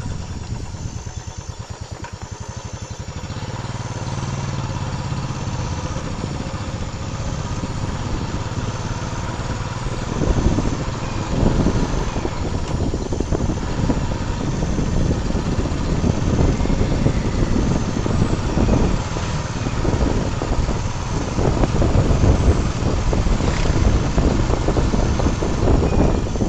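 A motor vehicle engine running steadily, with rough low rumbling noise, quieter for the first few seconds and then louder and steadier.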